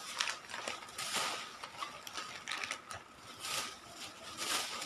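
Thin plastic grocery bag rustling and crinkling in irregular bursts as hands open it and move the packed groceries inside.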